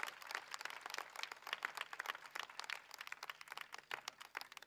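Crowd applauding: many hands clapping in a dense, even patter.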